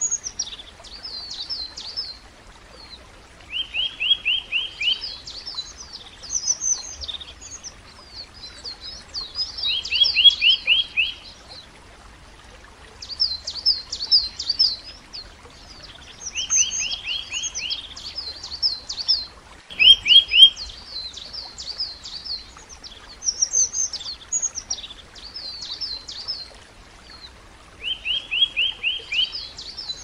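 A songbird singing in repeated phrases of varied high notes. About every six seconds a phrase includes a short, rapid run of lower notes.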